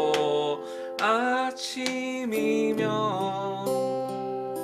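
Acoustic guitar (a Crafter) playing the accompaniment to a Korean ballad: an F major 7 chord struck at the start and let ring, then fresh chords about two and a half seconds in. A man sings along, starting a new sung line near the end.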